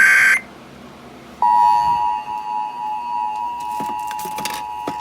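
Emergency Alert System tones through a radio. The rapid warbling data burst of the SAME header ends just after the start. After about a second of hiss, the steady two-tone EAS attention signal (853 and 960 Hz) begins about 1.5 seconds in and announces a flash flood warning. A few clicks come near the end.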